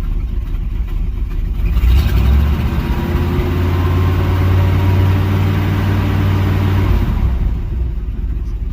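Warmed-up 305 H.O. small-block Chevy V8 idling, then revved about two seconds in and held at a steady higher speed for about five seconds before dropping back to idle.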